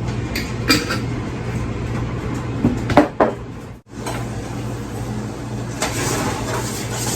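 Kitchen handling sounds: a few sharp knocks of pots, lids or utensils, one about a second in and a cluster around three seconds in, over a steady low hum.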